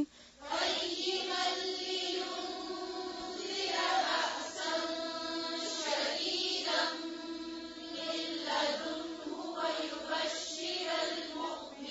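A learner's quieter voice reciting Quranic Arabic verse in a slow, melodic tajweed chant, repeating the verse just recited by the teacher.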